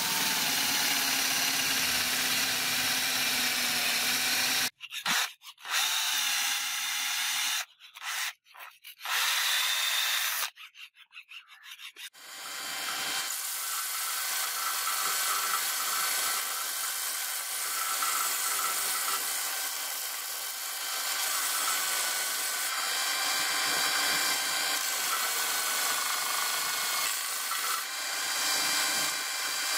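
Electric drill boring through the wooden handle scale, running steadily and then in several short bursts. From about twelve seconds in, a belt sander runs with the wood-and-brass handle pressed against the moving abrasive belt, an even grinding that lasts to the end.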